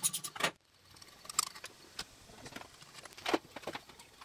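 Ratchet wrench clicking rapidly as the chainsaw's muffler bolts are backed out, stopping about half a second in. After that come a few light knocks and clinks of tools and parts handled on a wooden bench.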